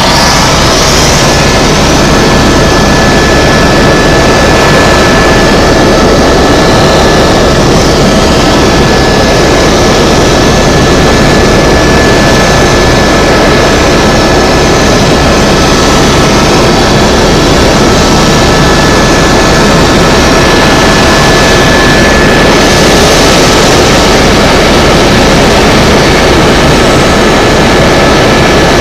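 Tour helicopter in flight: loud, steady rotor and turbine noise with a fast low flutter and a thin, steady high whine.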